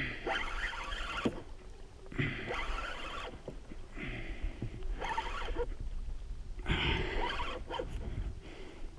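Fishing reel being cranked to bring in line while fighting a large fish, in about six short bursts of a second or less with pauses between.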